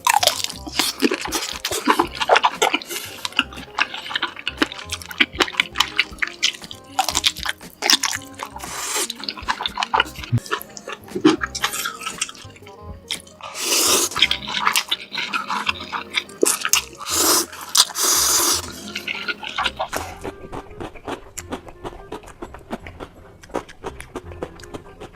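Close-miked eating sounds: a person chewing food dipped in cheese sauce, with wet, sticky mouth noises and many small irregular clicks, and a few louder, longer bursts of noise in the middle.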